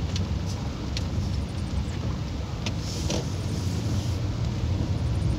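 Steady low rumble of a car driving on a rain-soaked road, heard from inside the cabin, with a few sharp taps of rain on the glass. A windshield wiper swishes across about three seconds in.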